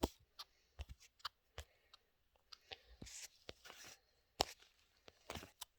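Scissors cutting, irregular sharp snips and clicks with a few short crunching cuts in between.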